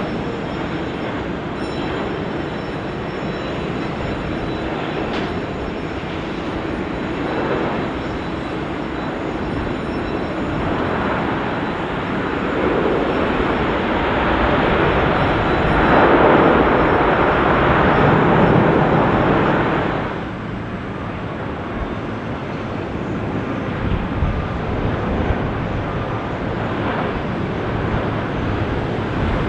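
Boeing 777 jet airliner arriving on landing, its engine noise swelling to a peak and then cutting off suddenly about two-thirds through, followed by a lower, steady jet and traffic rumble.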